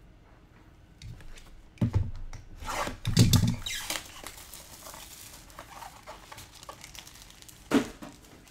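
Trading cards and their packaging being handled: scratchy rustling and sliding, with a knock about two seconds in, a louder one around three seconds, and another near the end.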